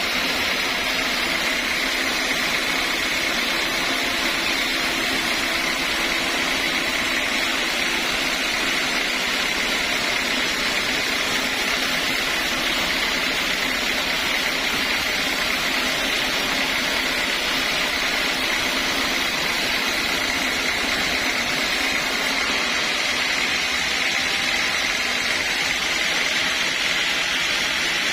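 Sawmill saw running steadily, a continuous even mechanical noise with a steady high whine, no change in load.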